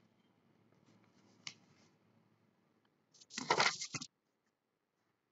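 A brief rustling, crackling handling noise lasting about a second, heard through a video call, after which the sound cuts out to dead silence.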